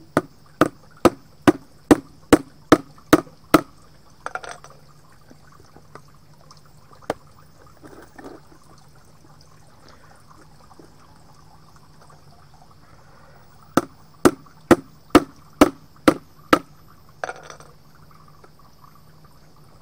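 Hammer tapping on a new paint can's plastic-rimmed lid: a quick run of about nine even blows, a long pause with a few small knocks, then about seven more blows near the end.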